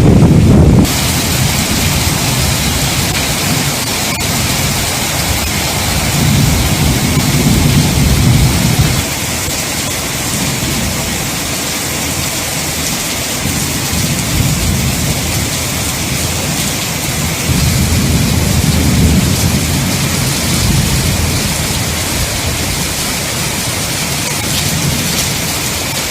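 Heavy monsoon rain pouring steadily, a dense hiss of rain with low rumbling swells now and then.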